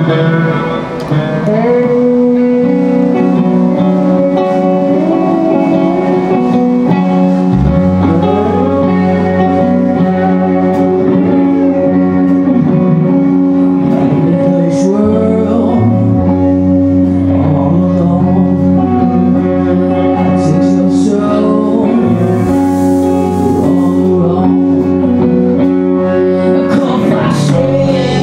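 Live rock band with electric guitars playing, and a bass guitar line coming in about eight seconds in.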